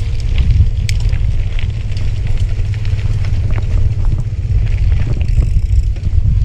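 Wind buffeting the microphone of a camera on a moving bicycle: a heavy, unsteady rumble, with light clicks and rattles scattered through.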